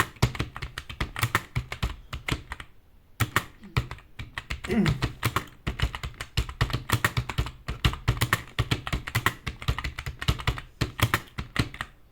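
Fast, continuous typing on an external computer keyboard, a rapid run of key clicks with a short pause about three seconds in.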